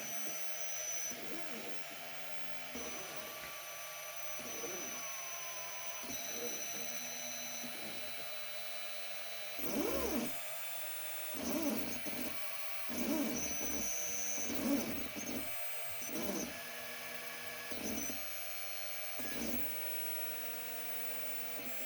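Motors of a Niryo One robotic arm whining in short starts and stops as the arm moves. In the second half there is a run of about seven short low pulses, roughly one every second and a half.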